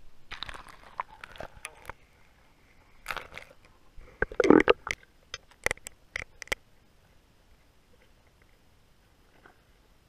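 GoPro Hero 3 Black in its waterproof housing knocking and scraping as it is handled and lowered through a hole in lake ice. A run of sharp knocks peaks with a deep thump about four and a half seconds in. It is almost quiet once the camera is underwater.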